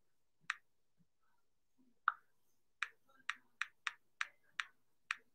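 Typing on an iPad Pro's on-screen keyboard: about nine short, sharp taps, two spaced out at first, then a quicker run of keystrokes over the second half.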